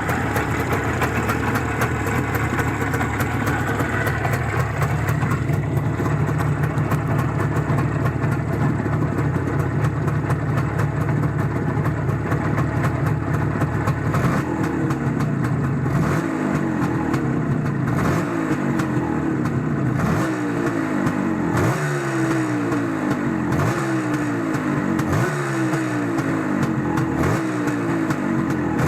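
An engine running steadily, then from about halfway its pitch sweeps over and over, about once every second and a half to two seconds.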